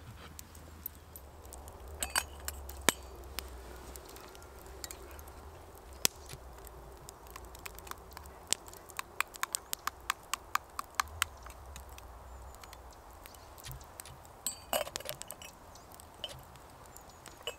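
Metal spoon clinking against a steel cook pot hung over a campfire while stirring, with a quick run of taps midway. Near the end comes a brief clatter as the pot's metal lid goes on.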